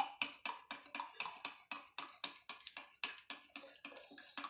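Metal spoon beating yogurt in a glass bowl, clicking against the glass about four to five times a second in a steady rhythm.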